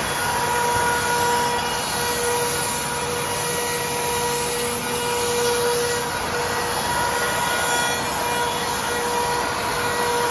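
CNC router spindles cutting a stair stringer from sheet board with the dust extraction running: a steady rush of machining and airflow noise with a steady whine over it.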